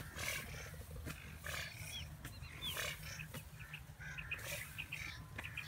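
Wheat stalks rustling and swishing as people push through a standing wheat field, with a few short high bird chirps and a steady low rumble underneath.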